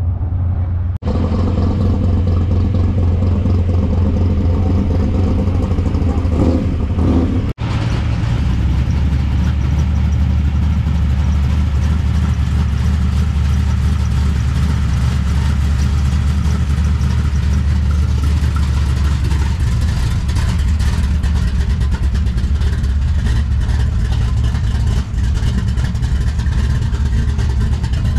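A motor vehicle engine running steadily at low revs, a deep, even hum. It drops out briefly twice, about a second in and again about seven and a half seconds in.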